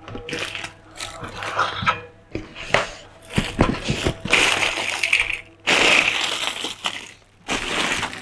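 Clear plastic toy bags crinkling and rustling in bursts as a hand rummages through a box full of them, with a few sharp knocks near the middle as bagged plastic toys are set down.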